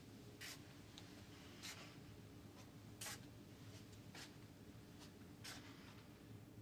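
Near silence: quiet room tone with a faint low hum and a handful of soft, irregular rustles.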